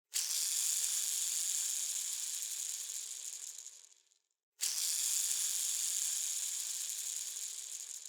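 A bearing spun twice, making a high whirring rattle. Each spin starts suddenly and fades away over about four seconds as it coasts down, the second starting about halfway through.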